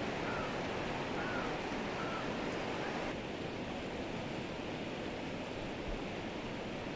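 Steady rushing noise of a river in flood flowing over its rocky bed, turning a little duller at a cut about three seconds in.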